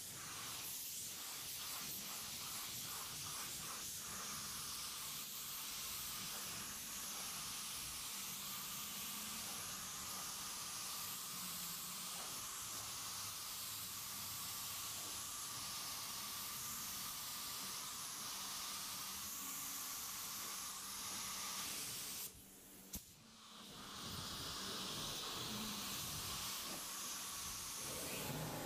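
Compressed-air paint spray gun hissing steadily as it sprays paint onto a truck's side panel. Near the end the hiss stops for about a second as the trigger is let go, with a single click, then starts again.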